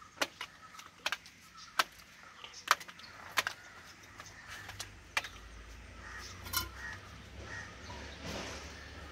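Sharp cracks and snaps of a weathered plastic paint bucket being broken apart by hand, with shards clinking, about eight snaps spread over the first seven seconds. The plastic has gone brittle after years in sun and rain and crumbles like a papadam.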